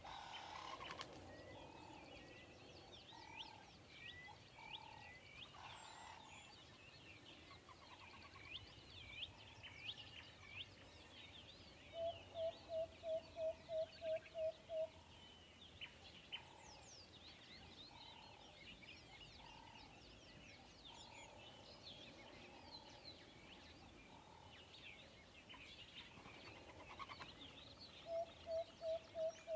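Birds chirping, with short high calls throughout. Twice a lower call of about nine quick, even notes repeats, about three notes a second; these are the loudest sounds.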